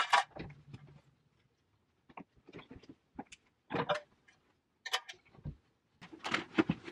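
Handling noise: scattered short clicks, taps and light knocks of small objects being picked up and moved, with short near-silent gaps between them.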